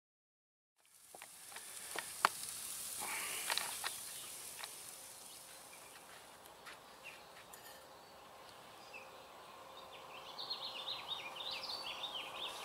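Oak wood fire in a smoker's firebox hissing, with a few sharp crackles, for about three seconds from a second in. After that comes quieter open-air background, with birds chirping near the end.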